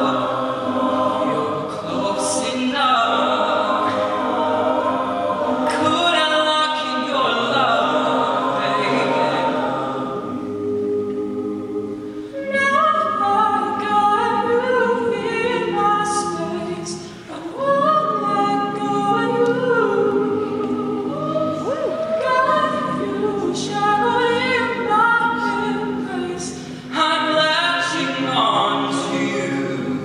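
Male a cappella group singing: a solo voice carries the melody over held chords sung by the rest of the group, with no instruments.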